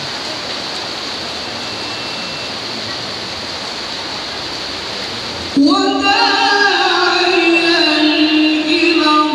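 Heavy rain hissing steadily. About halfway through, a reciter's voice comes in loudly with a long, slowly wavering held note of melodic Qur'an recitation over the rain.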